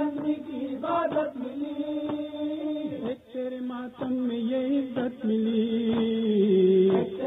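A male voice chanting a noha, a Muharram lament, in long held notes. The notes step lower about three seconds in and slide lower still near the end, with irregular sharp beats behind them.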